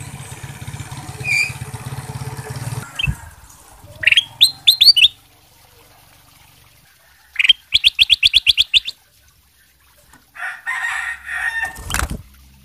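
Caged ruby-throated bulbul (kutilang emas) singing: a quick burst of about six rising whistled notes about four seconds in, then a faster trill of about ten notes. Near the end comes a flurry of wing flapping and a knock as the bird hops off its perch.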